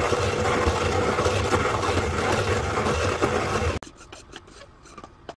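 Hand-cranked coffee grinder grinding beans: a steady dense rasp that stops abruptly a little under four seconds in. A few light clicks follow.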